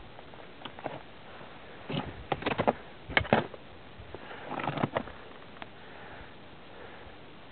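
Close rustling and crackling on the microphone in two short clusters, the first and louder one about two seconds in and the second about four and a half seconds in, over a steady hiss.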